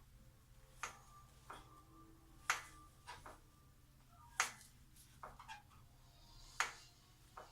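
RockShox Recon Solo Air suspension fork clicking sharply as it is compressed. Four loud clicks about two seconds apart, with fainter clicks between. The owner reports the click as an abnormal noise that always comes at the same point early in the stroke.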